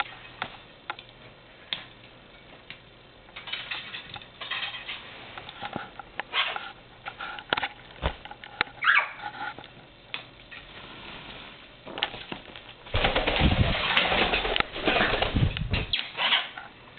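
African grey parrot flapping its wings to take off and fly, a loud flurry of wingbeats lasting about three seconds near the end. Before it, scattered clicks and scuffles with a few short chirps.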